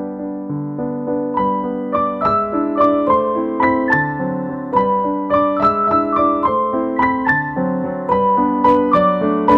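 Background music: a light piano tune, its melody moving note by note over a low accompaniment. Higher notes join in about a second and a half in.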